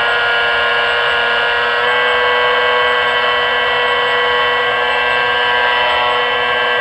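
Model aircraft motor running at high speed: a steady whine with many overtones. Its pitch dips slightly about two seconds in and drops near the end.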